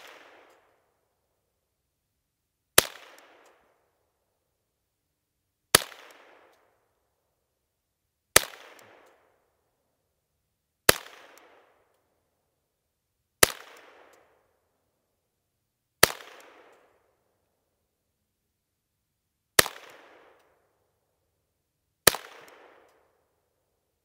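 Volquartsen 10/22-type semi-automatic .22 LR rifle firing CCI Velocitor high-velocity rounds: eight single shots about two and a half to three and a half seconds apart, each a sharp crack with a short fading echo.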